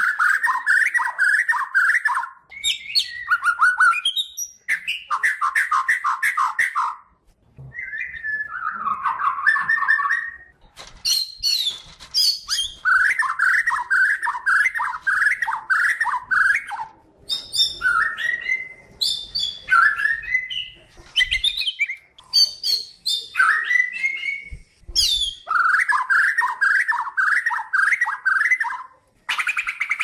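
White-crowned shama (the Bornean, Kalimantan race of the white-rumped shama) singing loudly and continuously in varied phrases: fast runs of repeated notes, about four a second, alternating with high whistles, with short pauses between phrases.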